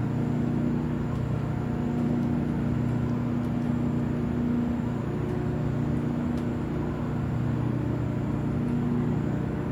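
Steady low drone of a large ship's machinery running at idle, a constant hum with a few fixed low tones that does not change in pitch or level, from the moored high-speed catamaran Ocean Arrow.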